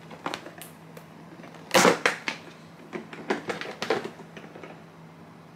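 Two cardboard suitcase-style keepsake boxes with metal handles and clasps being handled, giving clicks, knocks and light metal rattles. The loudest clatter comes about two seconds in, followed by a run of lighter clicks.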